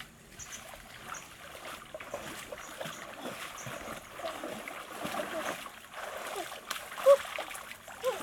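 Water splashing and sloshing in shallow water, irregular and ongoing, with brief bits of voice over it and one short, louder sound about seven seconds in.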